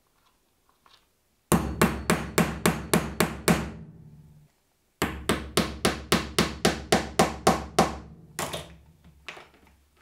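Hammer striking a metal snap-setter punch to set a snap fastener through the leather flap, on a steel setting base. There are two runs of quick, even blows, about four to five a second, with a short pause between them and a few softer blows near the end.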